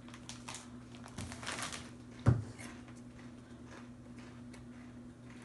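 Quiet snack-eating and handling sounds: faint crunches and rustles, with one sharp knock a little over two seconds in, over a steady low hum.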